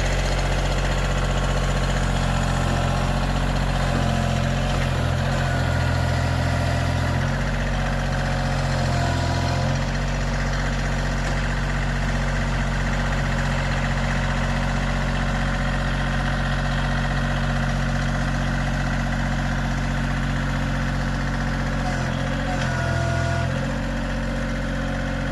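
Tractor engine running steadily while its bucket forks are used to lift a wood chipper out of a pickup bed. The engine note changes briefly a few times, between about five and ten seconds in and again near the end.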